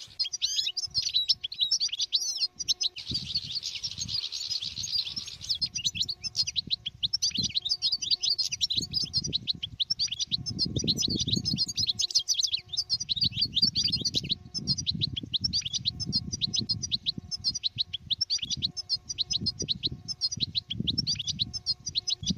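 European goldfinch singing: a long, rapid run of liquid twittering notes, with an irregular low rumbling noise underneath.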